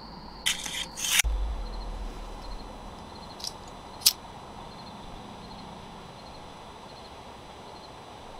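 Rustling of a cigarette pack's foil liner as a cigarette is pulled out, ending in a sharp snap a little over a second in. Two short clicks follow around three and a half and four seconds in, over faint crickets chirping.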